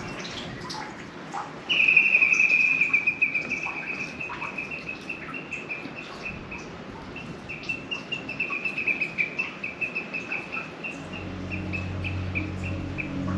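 A bird singing a long run of rapid high chirps, a continuous twitter at first that breaks into quick repeated pulses.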